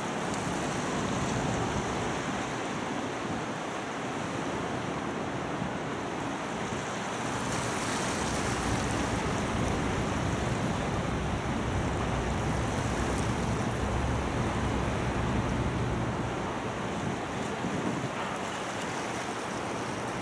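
The Santa Maria replica galleon sightseeing boat motoring past: a low engine rumble swells in the middle as it passes closest and fades again. Under it runs a steady wash of water and wind on the microphone.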